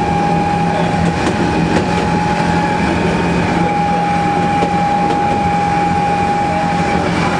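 Narrow-gauge diesel locomotive running along the line, heard from its front platform: steady engine drone and wheel-on-rail running noise with a steady high whine.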